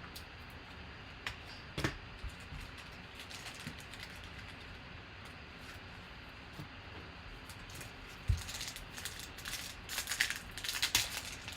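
Trading cards and foil pack wrappers being handled: light scattered clicks and rustles, a soft thump about eight seconds in, then a run of crisp crinkling and flicking near the end as a pack is opened and the cards are sorted.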